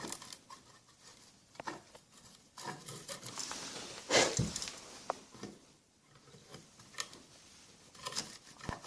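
Screwdriver scraping and clicking in the screw holes in the base of a Rancilio Rocky doser grinder, prying out coffee beans stuck in them. The small clicks and scrapes come irregularly, with a louder scrape about four seconds in.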